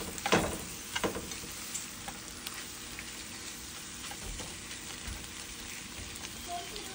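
Spinach and mushrooms sizzling in a hot frying pan as the fresh spinach starts to wilt. A slotted spatula turns the leaves, with a few scraping strokes against the pan in the first second or so, then a steady sizzle.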